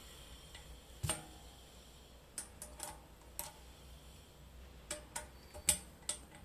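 Metal parts and tools clicking and clinking as a bicycle springer fork's link piece is fitted: a sharp knock about a second in, then two clusters of light clicks.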